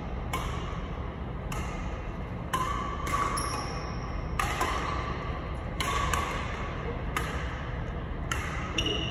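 Badminton rally: rackets striking a shuttlecock about once a second, each sharp hit ringing in a large hall, with short sneaker squeaks on the court floor between hits.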